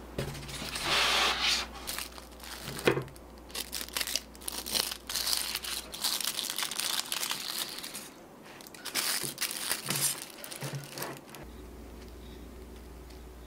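Aluminium foil crinkling in irregular bursts as foil collars are peeled off freshly baked burger buns, with one sharp knock about three seconds in. The crinkling stops a couple of seconds before the end.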